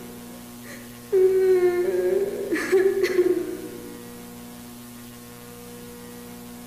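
Steady electrical hum throughout. About a second in, a long, wavering moaning wail rises over it and fades out about three seconds later.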